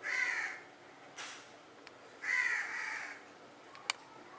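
A crow cawing in harsh, downward-bending calls: one at the start, a faint one about a second in, and a longer, drawn-out caw past two seconds. A single sharp click comes near the end.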